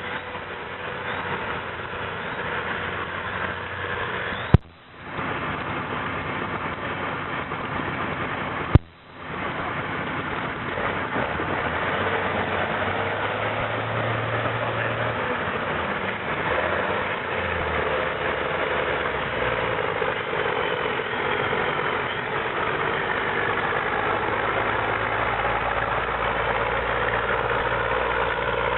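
Pulling tractor's engine running steadily under the noise of a busy showground. There are two sharp clicks, about four and a half and nine seconds in, each followed by a brief drop-out.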